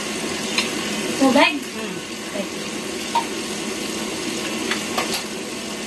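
A steady rushing background noise, with a few light clicks of a spoon against a drinking glass and a short vocal sound about a second and a half in.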